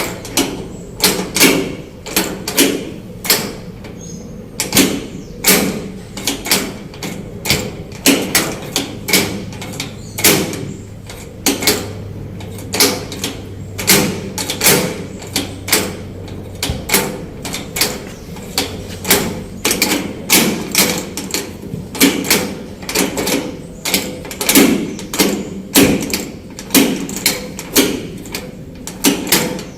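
Door lock being worked over and over: a long, irregular series of sharp clicks and clacks, roughly one to two a second.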